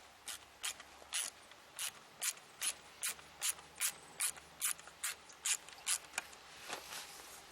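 Ratcheting hand tool clicking in an even rhythm, about fifteen clicks at roughly two and a half a second, stopping about six seconds in, as a self-tapping screw is driven into the aluminium mast section.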